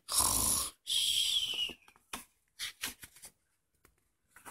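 A hardback picture book sliding and being handled on a table: two short scraping rushes of paper-and-board noise, then a few soft taps and paper rustles as the page is gripped for turning.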